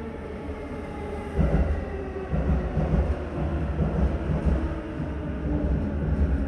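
Orange-striped JR Chuo Line commuter train running into the platform, a low rumble with uneven pulsing that grows suddenly louder about a second and a half in as the cars pass close by.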